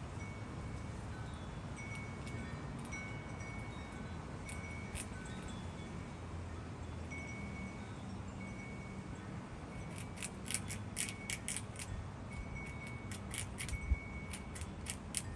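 A fox squirrel gnawing the shell of a large walnut: a run of sharp clicks that starts about two-thirds of the way in. Light chime tones ring now and then throughout.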